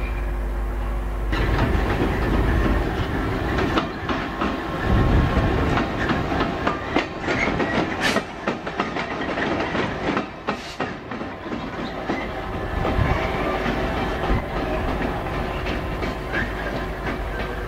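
GB Railfreight Class 66 diesel locomotive running light engine at speed, its two-stroke V12 diesel engine running and its wheels clattering over rail joints and pointwork. About a second in the sound gets suddenly louder and rougher as the locomotive is close by.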